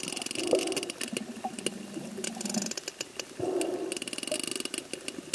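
Sperm whale clicks recorded underwater: trains of rapid, evenly spaced clicks that speed up into buzzing runs, twice, mixed with lower short squeaks and whines.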